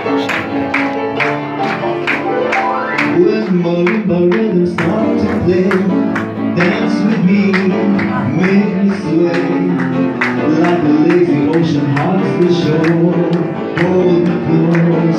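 Live Persian pop song played with grand piano, with sustained melody notes over a steady, sharp beat of about two to three strokes a second.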